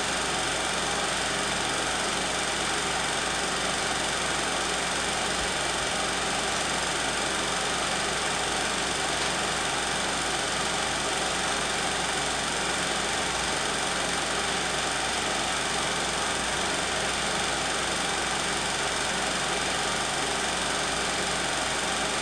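16mm film projector running steadily: an unbroken mechanical whirr with a constant hum.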